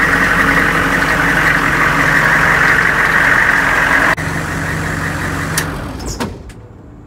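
Humvee V8 diesel engine idling steadily through its raised above-water muffler. About four seconds in the sound abruptly turns quieter, and about six seconds in the engine is switched off at the dash and runs down to a stop, ending with a click.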